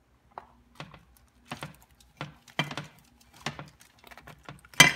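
Handling noise: short, irregular clicks and crinkles from aluminium foil and silicone oven mitts as a foil-lined loaf is gripped in a glass loaf dish, with a louder knock near the end.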